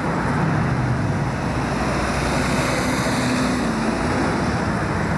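Steady city traffic noise: a continuous low rumble with a faint engine hum partway through.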